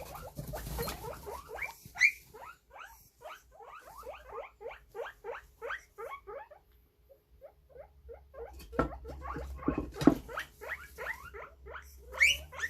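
Guinea pigs wheeking: a rapid series of short, rising whistling squeals, several a second, with a few higher, louder sweeps. This is the loud call typically used to beg for food. A couple of knocks come about two-thirds of the way through.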